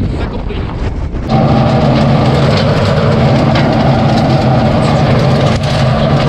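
Wind buffeting the microphone for about the first second, then suddenly a tractor's diesel engine running steadily under load, heard from the cab, as it pulls a power harrow and seed drill through dry soil.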